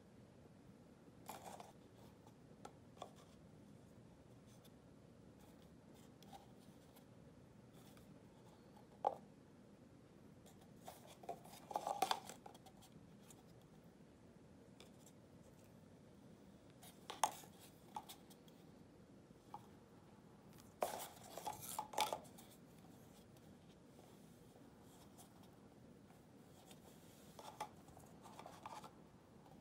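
Paper cups being picked up and set down one at a time: scattered short, light taps and rustles at irregular intervals, some in quick little clusters, over a quiet room.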